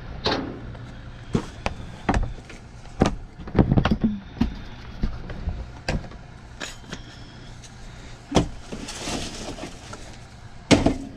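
Boxes and items knocking and thumping against one another and the metal sides of a dumpster as they are shifted and dug through, about a dozen knocks, the loudest near the end. Plastic rustles about nine seconds in, over a steady low hum.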